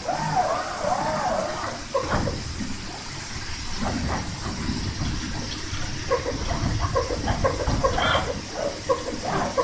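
ESKO Kongsberg X24 cutting table's tool head moving over the vinyl during the kiss cut: its drive motors whine in short rising and falling glides as the head changes direction, with a quicker run of short whirs in the second half, over a low rumble and a steady hiss.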